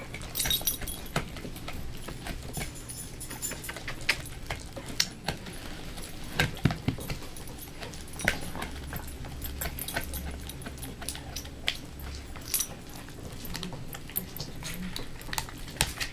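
A dog gnawing a chew stick held between its front paws: irregular crunches and sharp clicks of teeth on the chew.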